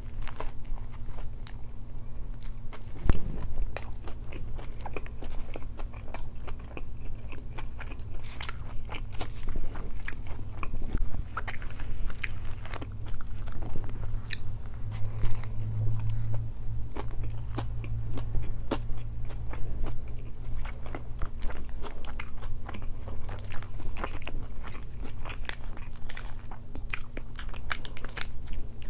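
Close-miked biting and chewing of a grilled chicken flatbread wrap with lettuce: crunchy bites and many small wet mouth clicks and crackles, over a steady low hum.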